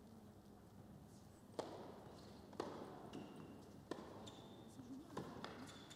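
Tennis rally: a tennis ball being struck and bouncing, sharp pops about a second apart, five in all starting about a second and a half in. Short high squeaks of players' shoes on the court come between the hits.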